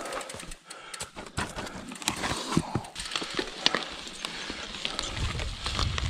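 Mountain bike rolling fast down a dirt forest trail: tyre noise on the loose ground and an irregular run of sharp knocks and rattles from the bike jolting over roots and bumps. A low rumble comes in about five seconds in.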